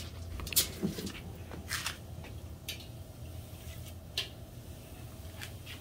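Scattered light clicks and taps from crisp fried lotus cookies and kitchen utensils being handled and set down, about half a dozen in all. The loudest comes about half a second in. A steady low hum runs underneath.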